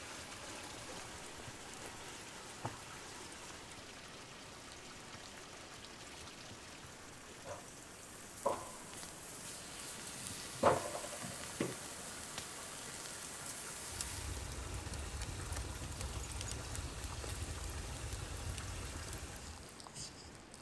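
Raw bone-in beef steaks laid onto a metal grill grate, with two knocks and a smaller one, then a steady sizzling hiss. A low rumble joins in for the last several seconds.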